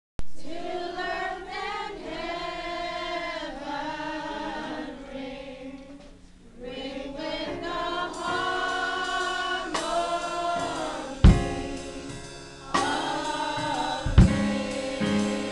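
Gospel choir singing together, several voices in sustained, swelling phrases. About eleven seconds in, a drum kit comes in with heavy kick-drum hits, and a bass line enters under the voices.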